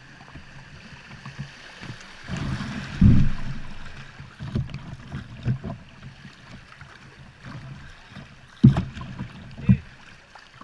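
A kayak being paddled on a river: water splashing and sloshing around the hull, with irregular low thumps, the loudest about three seconds in and again near the end.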